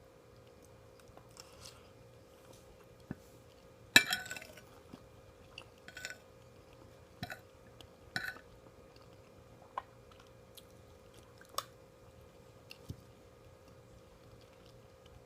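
Eating omurice: cutlery clinks sharply against a plate once about four seconds in, followed by a string of softer clinks, with quiet chewing between.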